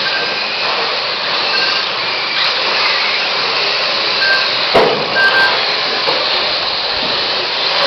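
Radio-controlled Mini-class racing cars running on the track: a steady whine of small electric motors mixed with tyre noise, with a sharp knock about five seconds in.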